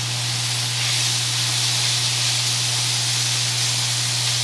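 Vegetables sizzling on a hot grill as they caramelize: a steady hiss that swells slightly about a second in, over a steady low hum.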